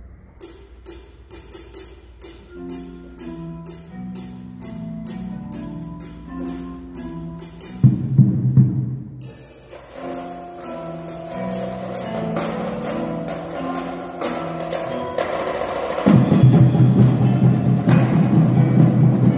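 Indoor percussion ensemble playing: marching snare drums, tenor drums and bass drums. Sharp clicks in a steady rhythm run over short pitched notes, a loud low swell comes about eight seconds in, and a dense, loud low passage starts near the end.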